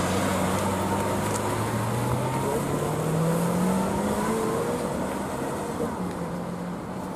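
Lamborghini Aventador S's V12 engine pulling away at low revs. The revs rise in one long climb, then the sound fades as the car drives off.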